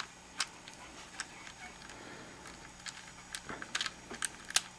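Plastic pieces of a Gigaminx puzzle clicking and knocking as they are pushed and shifted into the partly assembled core. The light clicks come at irregular intervals, with a small run of them a little past the middle and the loudest near the end.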